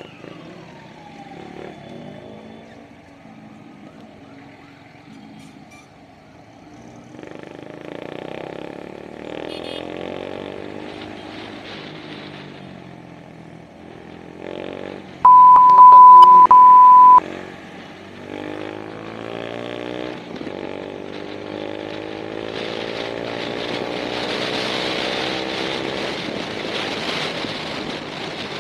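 Motorcycle engine heard from the rider's camera while riding in traffic: the pitch falls as it eases off early on, then rises repeatedly as it pulls through the gears, with wind noise building near the end. About halfway through, a loud steady single-pitch bleep lasts about two seconds.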